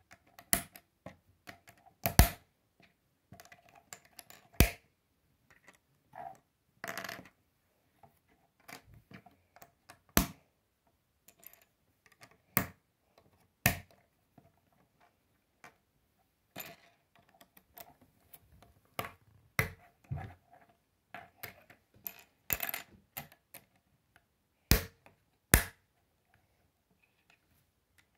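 Plastic K'nex rods and connectors clicking together and being set down on a wooden table: irregular sharp clicks and clacks with pauses between them, a few louder snaps among them.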